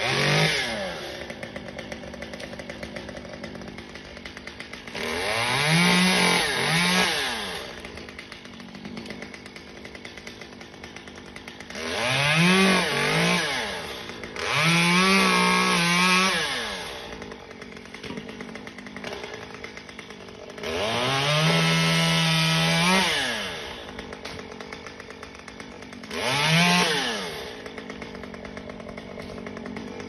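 Two-stroke chainsaw up in a cedar elm, idling with a steady ticking between about six throttle bursts. In each burst it revs up quickly and holds high revs for one to three seconds as it cuts into the wood, then drops back to idle.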